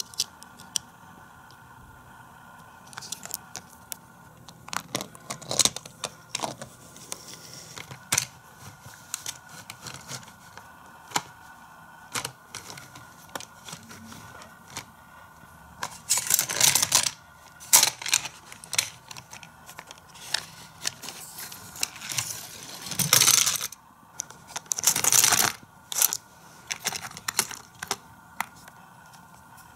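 Die-cast Hot Wheels cars clicking and clattering on a plastic playset, with several longer rolling runs down the plastic ramps in the second half.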